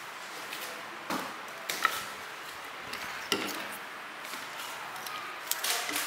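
Handling noise on a wooden workbench: a handful of separate sharp clicks and knocks as plastic wire connectors and a metal e-bike controller box are handled and set down, with a small cluster of knocks near the end.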